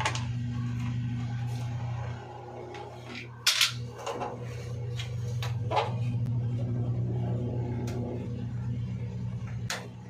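Plastic thermostat cover of an electric water heater being pried and pulled off, with sharp plastic clicks and clatter, the loudest about three and a half seconds in and others near six and ten seconds. A steady low hum runs underneath.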